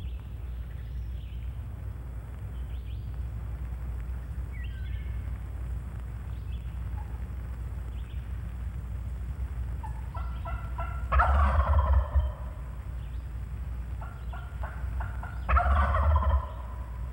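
Wild turkey gobbler gobbling twice, about four seconds apart, each gobble cutting in right after a short run of yelps on a turkey call. A tom answering before the calling even finishes is the sign that he is coming in to the caller.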